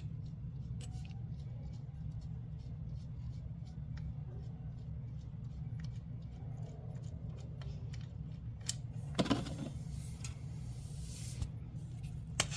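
Scattered small metallic clicks of a 17 mm socket wrench working the oil drain plug on a 125cc go-kart engine, over a steady low hum. About nine seconds in comes a louder rushing noise lasting about two seconds, then a sharp click near the end.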